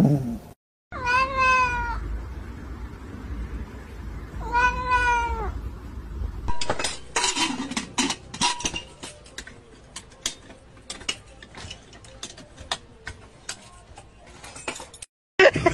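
A cat meows twice, two long calls that rise and fall, about three seconds apart. Then comes an irregular run of sharp clicks and taps.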